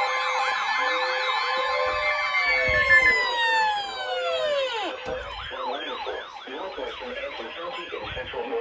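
Several sirens sounding at once, their wails overlapping. The steady wails wind down and fade out around four to five seconds in, leaving quieter warbling sirens rising and falling about twice a second.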